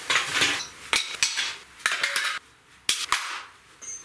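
Hand tools and a plastic box of screws tossed one after another onto a concrete paver floor: several sharp clanking impacts, each with a brief rattle, over about three seconds.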